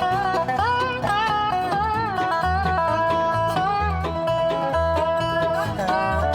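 Background music: upbeat bluegrass-style tune with banjo and guitar over a steady bass beat.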